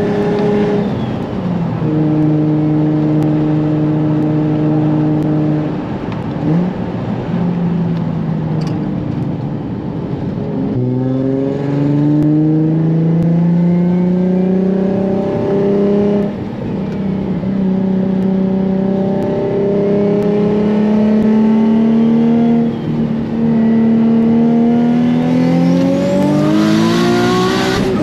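Single-turbo Nissan 350Z's V6 engine heard from inside the cabin, at steady revs for the first several seconds. It then accelerates in long rising pulls with brief dips between them, and the hardest rise in revs comes near the end.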